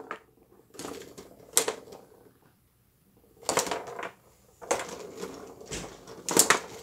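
Tabletop foosball game in play: quick clattering clicks of the ball being struck by the players' figures and the rods knocking, in several short clusters with brief pauses between.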